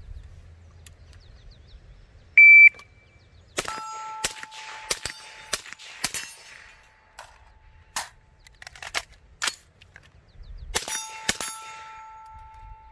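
Shot-timer beep, then a suppressed 300 Blackout AR-15 firing Barnaul steel-cased rounds as sharp reports in quick, uneven strings. A clear ringing tone hangs on after the first and the last strings, and the rifle cycles reliably on the suppressed gas setting.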